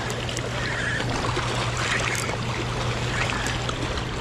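Steady rush of fast river current washing along a rocky riprap bank, with a constant low hum underneath.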